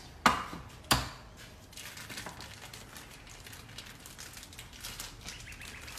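Raw lamb backstrap dumped from its packaging onto a plate, landing with two thuds about a second in, the second the heavier; then the plastic wrapping crinkles faintly as it is peeled off the meat.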